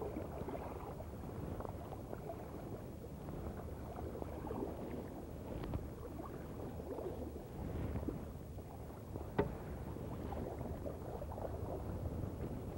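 Quiet canoe paddle strokes, the blade dipping and pulling through calm water beside the hull, with a single sharp knock about nine seconds in.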